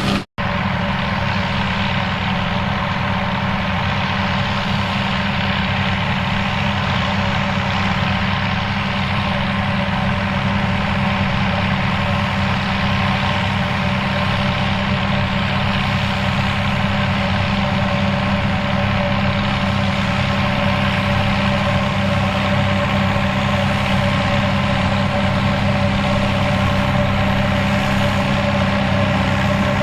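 Turbocharged Fiat 800 tractor's diesel engine running at steady speed, with a momentary dropout just after the start.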